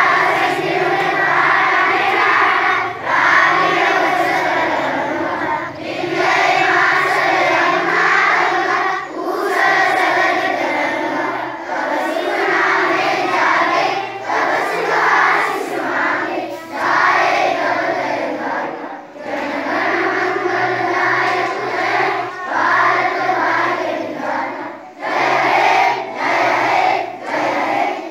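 A large group of schoolchildren singing together in unison, in phrases broken by short breaths every two to three seconds.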